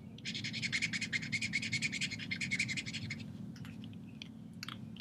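Marker nib scratching quickly back and forth on marker paper, about a dozen short strokes a second for some three seconds, then a few single strokes near the end, as colours are laid down and blended.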